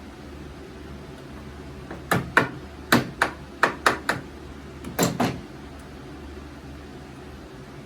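Eight sharp knocks in quick, uneven clusters over about three seconds, over a steady low hum.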